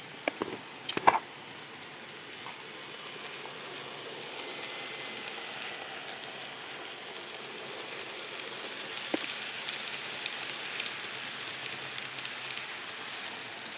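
N scale model train, a Kato SD70MAC locomotive hauling freight cars, running on the layout track: a steady whirring hiss of motor and wheels that grows louder as the train passes close. A couple of sharp clicks come about a second in.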